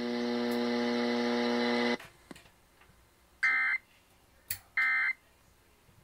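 Emergency Alert System broadcast tones through a clock radio's speaker. A steady buzzing tone lasts about two seconds and cuts off. After a pause come two short bursts of EAS digital data, about a second and a half apart: the end-of-message code that closes the tornado warning.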